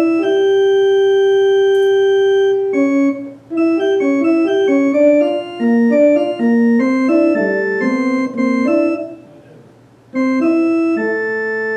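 Baldwin HT2 electronic organ being played: a long held chord, then a passage of changing notes that sound steadily and stop cleanly. The notes break off briefly about nine seconds in, and a new chord comes in near the end.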